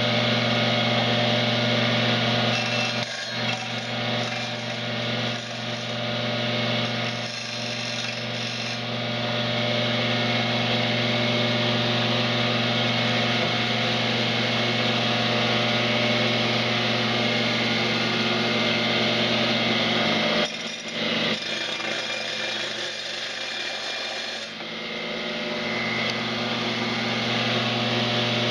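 Electric power tool motor running steadily while smoothing the cut edges of a notched tile. The hum dips a few times early on and sags for several seconds near the end, as the load on the tool changes.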